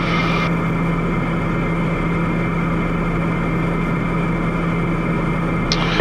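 Piper Meridian M500's Pratt & Whitney PT6A turboprop and propeller droning steadily in flight, with a constant low hum running under it.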